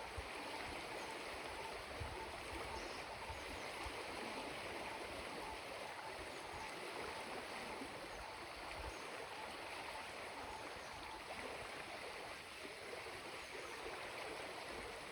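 River stream flowing in a steady, soft rush of water.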